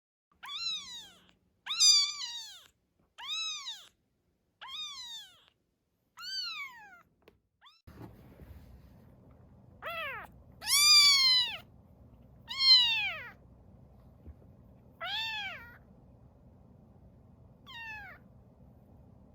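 Newborn kitten crying, about ten high-pitched meows that each rise and then fall in pitch. They come every second or so at first and then more spread out, with a faint low background noise starting about halfway through.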